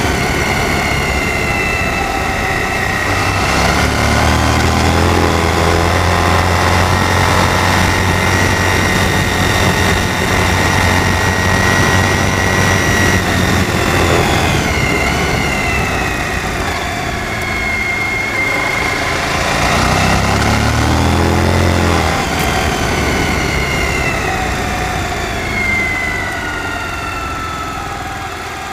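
Suzuki V-Strom DL1000's V-twin engine running while riding, its pitch rising and falling as the throttle is opened and eased off, with a deep drone during the harder pulls about a third of the way in and again past the middle.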